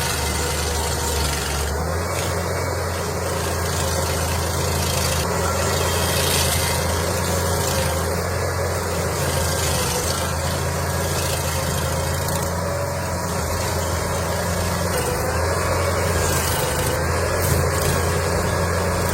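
Engine of a heavy machine running steadily at constant speed: a low hum with steady overtones and a slight wavering in pitch.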